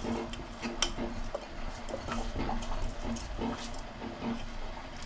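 Water poured from a steel vessel into a large aluminium pot of soaked rice and chicken masala, with light clinks of metal. A faint whine comes and goes now and then.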